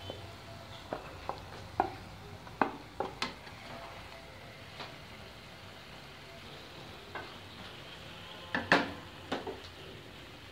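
Spatula knocking and scraping against a pan as raw chicken pieces are pushed into hot masala and stirred: a dozen or so scattered sharp knocks, loudest about three-quarters of the way through, over a faint steady sizzle.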